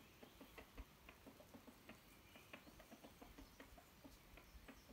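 Faint, quick, irregular clicks and crackles, several a second, as a kitchen knife cuts into a small chicken carcass.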